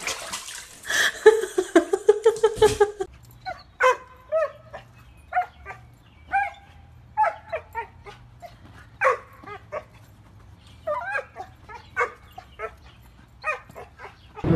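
A small dog barking in short, sharp yips, about fifteen of them at uneven spacing over ten seconds or so. Before the yips, for about two seconds, a louder wavering cry.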